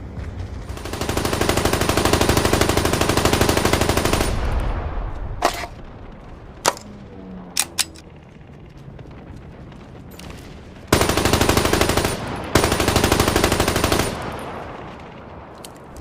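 Maxim MG08/15 water-cooled machine gun in 7.92×57mm firing automatic: a long burst of about three and a half seconds, a few single sharp cracks, then two shorter bursts back to back near the end.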